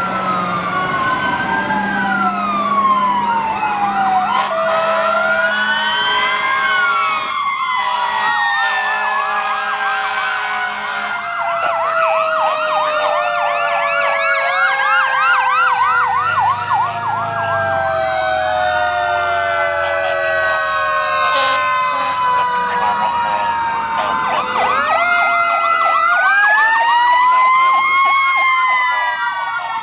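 Several fire apparatus sirens sounding at once as the trucks pass, electronic wails rising and falling over fast yelps. A few steady horn notes sound in the first several seconds.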